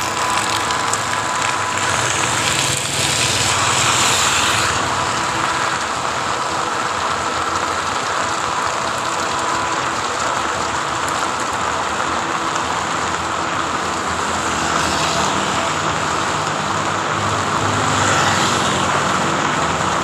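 Heavy rain falling steadily on an open umbrella, mixed with passing road traffic on wet streets.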